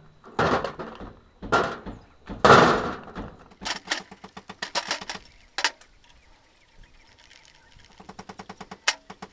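Handling noises from a refrigerant compressor motor being shifted and worked on a tabletop: three rough scraping sweeps, then a run of light metal clicks and clinks. Near the end a small engine starts puttering steadily in the background.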